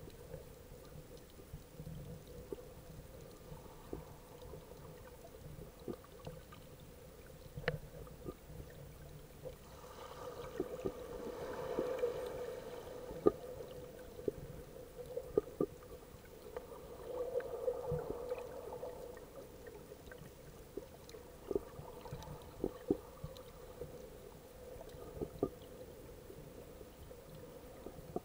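Underwater sound picked up by an action camera in its waterproof housing: muffled water movement that swells twice, with scattered sharp clicks and knocks over a steady hum.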